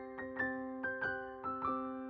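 Soft background piano music: single notes about two or three a second over a held chord.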